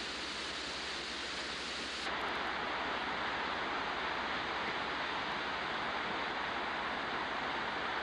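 Steady rushing of whitewater on river rapids, becoming louder and fuller at an abrupt change about two seconds in.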